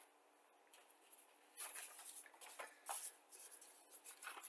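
Near silence broken by a few brief, faint rustles of a paper instruction sheet being handled on the desk.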